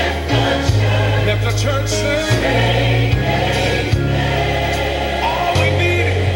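Gospel choir singing over a band with bass and drums.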